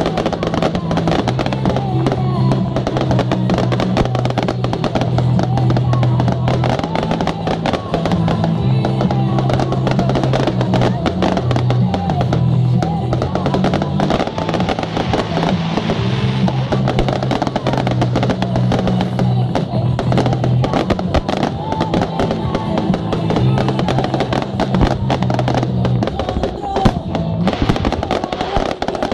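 Fireworks bursting and crackling in quick succession over loud music with deep held bass notes that change every second or two.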